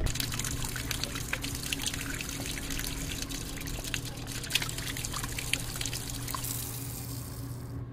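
Water from a kitchen faucet running into a mug, splashing and trickling with many small drips. The flow stops abruptly just before the end as the tap is shut off.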